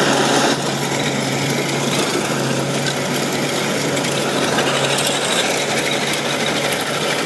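Kubota DC-93 combine harvester running at full throttle while it cuts and threshes rice: a steady, dense mechanical drone with a constant low hum under the clatter of the cutting header and threshing drum.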